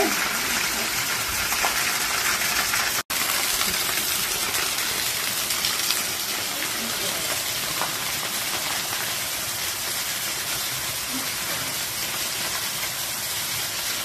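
Small waterfall running steadily: an even rush of water falling and splashing on rock and shallow water. It cuts out for an instant about three seconds in.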